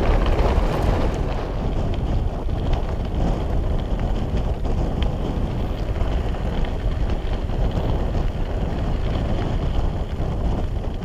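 Wind rushing over the microphone of a moving mountain bike, with the rolling noise of the ride on a dry, dusty trail; it eases off near the end.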